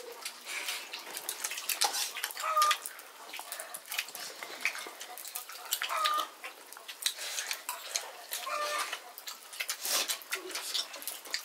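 Close-up eating sounds during a chicken curry and rice meal: many small clicks and knocks of chewing and plates. A short animal call sounds about four times, a few seconds apart.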